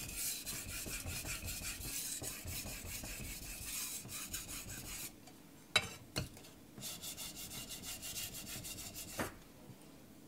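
Carbon-steel knife blade scraping back and forth on a wet King 1000-grit water stone in quick, even strokes, setting the edge. The strokes pause about five seconds in, with two short knocks as the knife is turned over, then resume on the other side and stop near the end.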